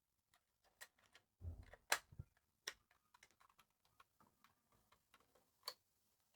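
A few faint, sharp plastic clicks and light knocks from handling a small 1980s calculator while a battery is fitted; the loudest comes about two seconds in, with scattered single clicks later.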